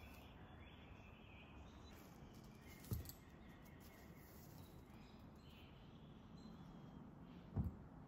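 Very quiet room with faint bird chirps in the background, and two soft thumps, about three seconds in and near the end, as a woven straw basket and knitting are set down on a padded sofa.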